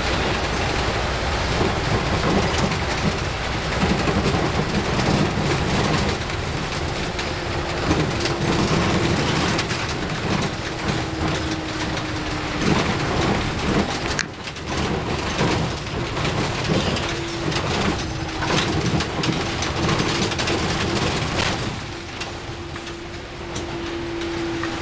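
A road vehicle driving on a wet road, heard from on board: a steady hiss of tyres on wet asphalt over the engine's drone, with a faint steady whine that comes and goes.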